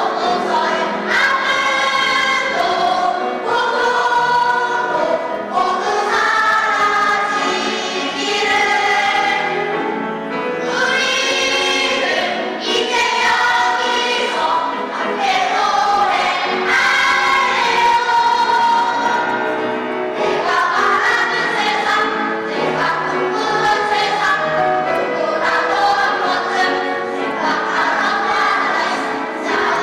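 Children's choir singing a song in held, flowing phrases.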